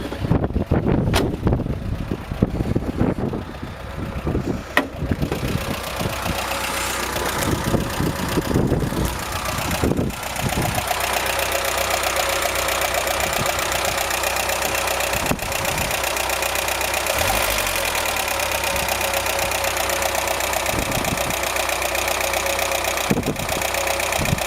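Talbot Express 2-litre petrol four-cylinder engine idling, heard close up in the open engine bay, after a run of clunks and handling noises in the first ten seconds or so. A faint knock is audible under the idle, which the owner finds doesn't sound too bad.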